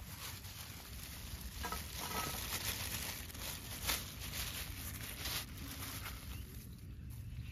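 Thin plastic bag crinkling and rustling as small shrimp are shaken out of it onto an aluminium plate, with a few sharp light taps.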